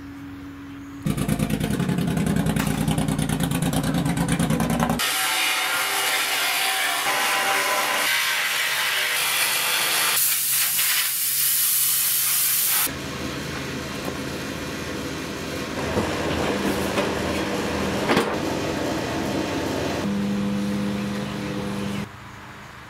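Metalworking noise on a large steel pipe mast in three cut-together stretches. First comes a dense rattling buzz. About five seconds in it gives way to a loud, steady hiss. From about thirteen seconds a quieter run follows, with a low steady hum.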